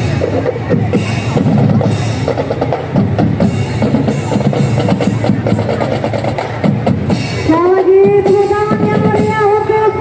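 Marching drum band playing: snare and bass drums beating steadily. About seven and a half seconds in, wind instruments come in with long held notes over the drums.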